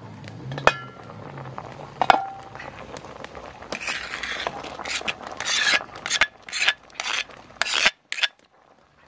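Two ringing metal clinks as the aluminium pot lid and ladle knock together, then a run of short scraping strokes, about two a second, as a metal ladle scrapes ground spice paste out of a stone mortar into the pot.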